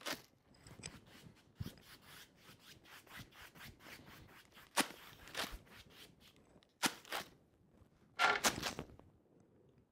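Stiff paintbrush scrubbing on a stretched canvas in quick short strokes, about five a second, then a few louder sharp scrapes about five, seven and eight seconds in.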